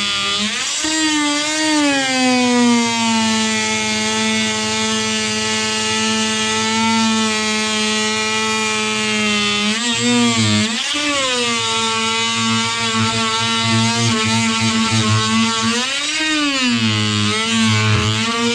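Electric power tool motor running steadily at high speed, its pitch sagging and recovering a few times as it bears into the material under load.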